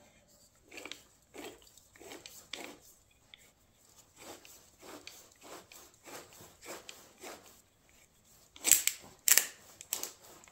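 Hand-turned oil filter cutter working around the steel can of an ACDelco PF47E oil filter: soft, short scraping strokes about two a second as the tool is rotated, then several loud sharp cracks near the end.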